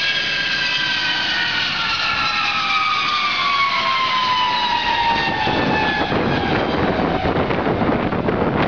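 Lockheed C-5 Galaxy's four turbofan engines whining as the aircraft passes low on its landing approach; the whine falls steadily in pitch as it goes by, and about five and a half seconds in a broad, low jet roar takes over.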